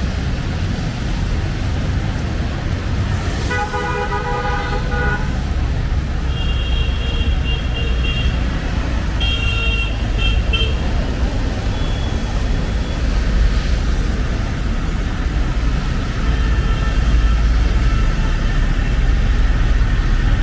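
Busy city road traffic: a steady low rumble of passing vehicles, cut through by a vehicle horn sounding for about a second and a half a few seconds in, then several bursts of short, higher-pitched horn toots.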